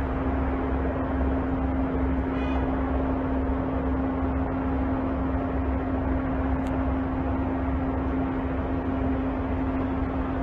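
Steady low rumble of ship diesel engines running at a pier, with a constant mid-pitched hum over it. A short high chirp comes about two and a half seconds in.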